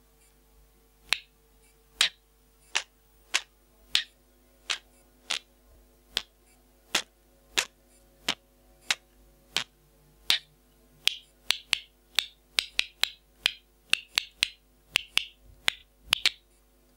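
Parrot making sharp clicking sounds close to the microphone. The clicks come singly, about one and a half a second, then come quicker and in bunches from about ten seconds in.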